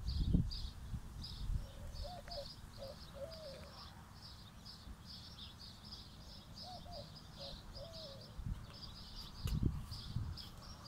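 A dove cooing, two short phrases of low, arched coos, over continuous rapid high-pitched chirping. There are low rumbles at the start and again near the end.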